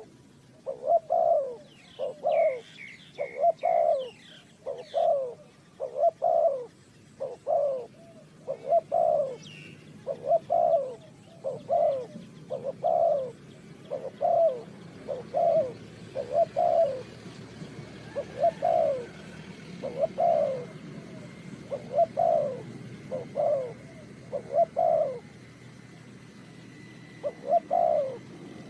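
A dove cooing over and over in a long series of short coos, about one to two a second, with a brief pause near the end. A few thin higher chirps from another small bird come in during the first ten seconds.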